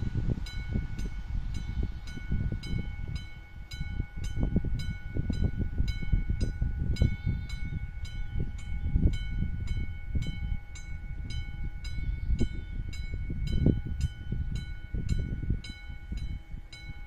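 Level-crossing warning bell of an AŽD 71 signal, a classic electric striking bell, ringing with rapid even strokes at about four a second, over a low rumble.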